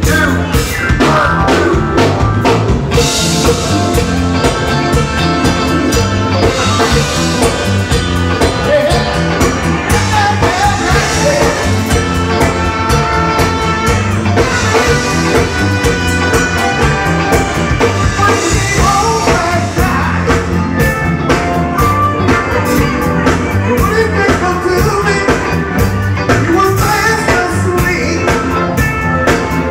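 Live band playing with a steady beat: drum kit, electric bass, electric guitars and congas, with a sung or melodic line on top.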